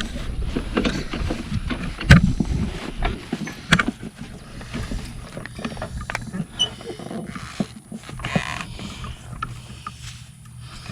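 Floor jack being positioned under a truck's frame: irregular metal clanks and knocks, the loudest about two seconds in and again near four seconds, with scattered lighter clicks after.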